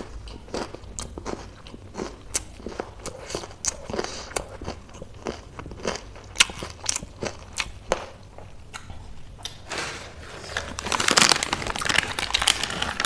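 Close-miked chewing and biting of food, with many short crunchy clicks. About ten seconds in, a plastic snack packet crinkles loudly for a couple of seconds as it is handled.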